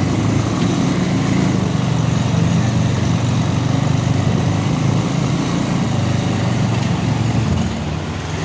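Motorcycle engine running steadily while riding, with a noisy rush of air over it; the engine note eases off near the end.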